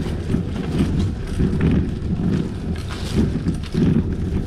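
Wind buffeting the microphone of a rider on a bicycle, an uneven low-pitched rumble that swells and fades every half second or so.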